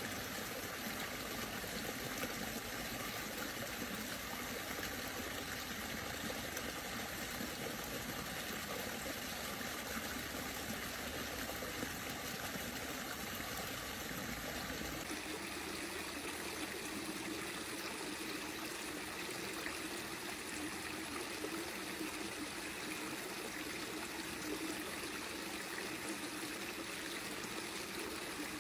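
Creek water trickling and flowing steadily. The sound shifts abruptly about halfway through.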